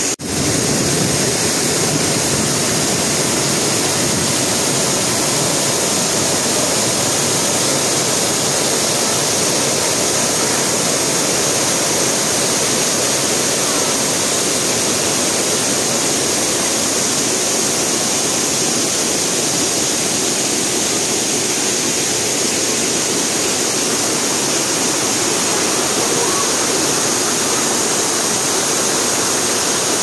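Waterfall pouring over a rock ledge close to the microphone: a loud, steady rush of falling water that cuts in abruptly at the start.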